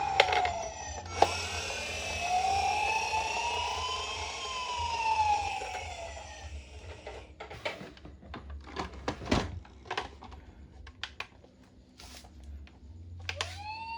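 Toy ambulance minicar's electronic siren wailing, slowly rising and falling, which cuts off about halfway through. Then come scattered small plastic clicks and knocks, and near the end a new steady tone begins.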